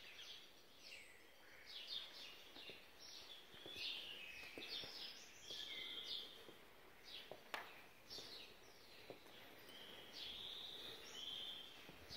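Small birds chirping and twittering, many short calls overlapping, with one sharp click about seven and a half seconds in.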